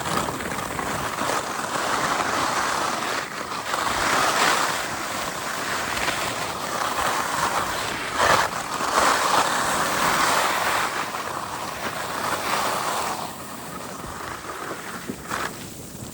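Skis sliding and scraping on packed snow, a rushing hiss that swells and fades in long surges, with wind buffeting the microphone. It thins out near the end.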